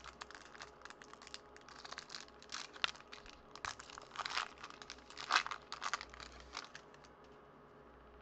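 Foil wrapper of a baseball card pack being torn open and crinkled by hand: a run of irregular crackles, loudest in the middle, that dies away about seven seconds in.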